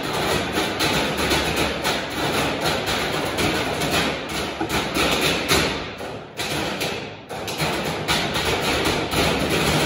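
A percussion quartet playing galvanized metal trash cans with sticks: fast, dense, overlapping strikes in rhythm, with two brief breaks about six and seven seconds in.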